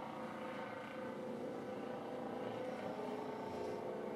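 Helicopter in flight: a steady drone of engine and rotor.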